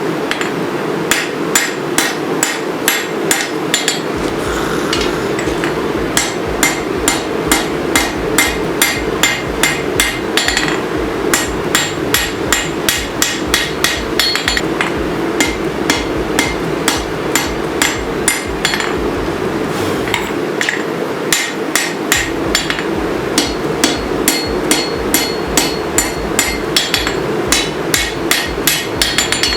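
Hand hammer striking hot steel on an anvil while forging a sword blade: steady, rhythmic ringing blows at about three a second, with a couple of brief pauses. A steady hum runs underneath.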